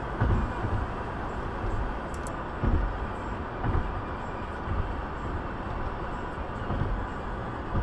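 Steady road and tyre noise of a car cruising at freeway speed, heard from inside the cabin, with a low rumble and a few brief low thumps.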